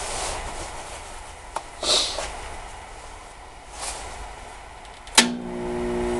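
Rustling of a heavy welding jacket and gloves with a few light knocks, then about five seconds in a sharp click as the arc welder powering the carbon arc torch is switched on, followed by its steady hum.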